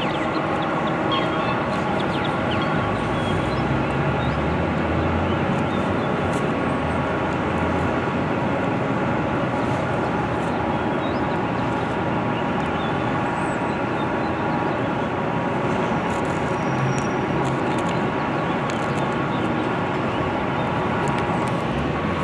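Steady city street noise dominated by a constant engine drone that holds a fixed pitch throughout, with traffic noise around it.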